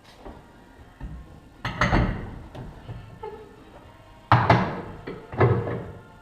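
A few heavy clunks and thuds, a steel-rimmed wheel being handled and set onto a wheel balancing machine.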